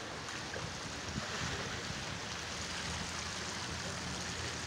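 Shallow creek water running over a gravel and rock bed: a steady, even rush of water.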